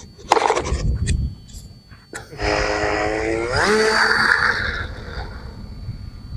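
Small RC airplane's electric motor and propeller spinning up after a couple of short knocks. Its whine rises in pitch about three and a half seconds in, then the sound dies down toward the end.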